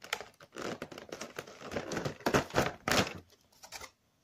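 Stiff clear plastic blister packaging crinkling and crackling as a die-cast miniature is worked out of its moulded tray. A few louder sharp clicks of the plastic come about two to three seconds in, and the sound tails off near the end.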